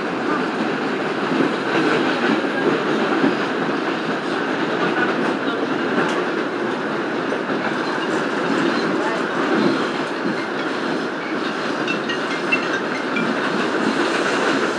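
R62A subway car running along the track, heard from inside the car: a steady rumble of wheels on rail with occasional faint clicks.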